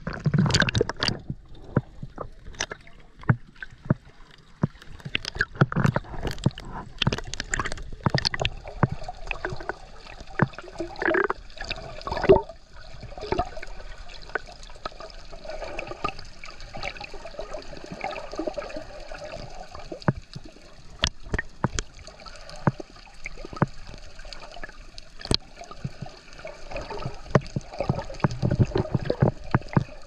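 Sea water sloshing, gurgling and splashing around a camera held at the surface and dipped underwater, with irregular sharp clicks and splashes that come thickest in the first half.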